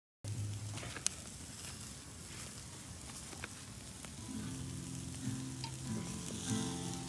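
Wood campfire embers crackling and hissing, with a sharp pop about a second in and scattered smaller snaps. Soft background music with held notes comes in about four seconds in.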